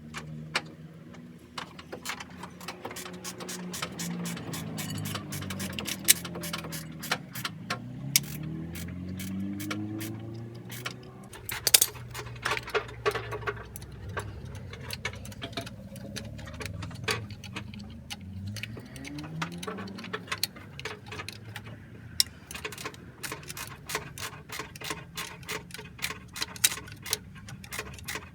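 Irregular sharp clicks and taps, many a second, with a humming tone underneath that rises in pitch twice, once about a third of the way in and again about two thirds in.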